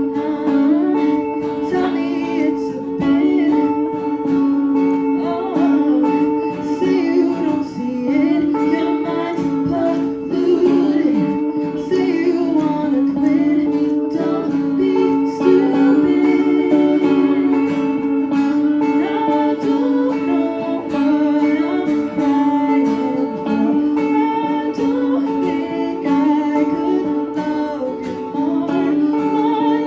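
Music: a song with plucked acoustic guitar and a singing voice over steady held notes.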